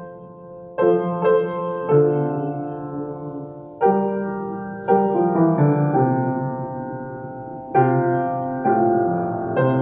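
Slow, calm keyboard music: held piano chords, a new chord struck every second or so and left to ring, with no singing.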